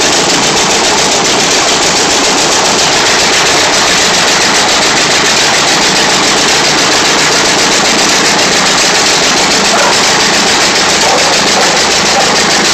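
Aircraft piston engine on a bare Command-Aire fuselage frame running steadily on a ground run, its wooden propeller turning. Loud and even, with rapid exhaust pulses.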